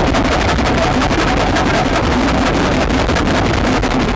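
Homemade amplified noise machine, a wooden board with rotating discs, spring coils and pickups, played by hand. It gives a loud, dense, grinding noise with a rapid, even pulsing through it.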